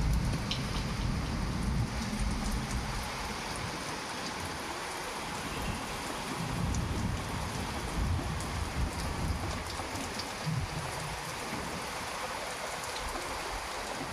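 Heavy rain falling steadily, with scattered drop ticks. A low thunder rumble fades away over the first few seconds, and a few fainter low rumbles follow later.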